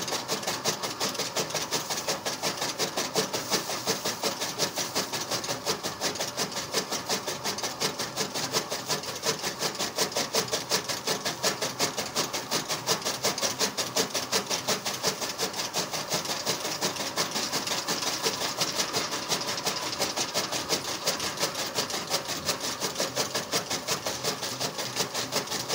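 Rabbits chewing fresh green stalks: a fast, steady crunching that goes on without a break.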